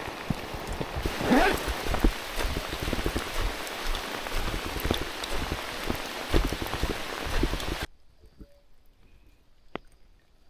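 Heavy rain falling close to the microphone: a dense patter of drops with many dull knocks, and a brief rising sound about a second and a half in. The rain cuts off suddenly near the end, leaving quiet with a single click.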